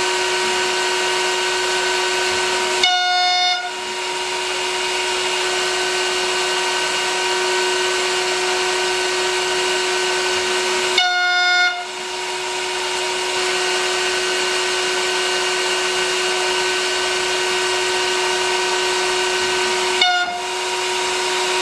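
High-speed CNC router spindle at 22,000 RPM with a 0.5-inch carbide end mill milling aluminium: a steady high whine over a constant hiss of mist-coolant spray. Three times, about every eight seconds, the sound breaks briefly with a sudden jump in level and a short dip.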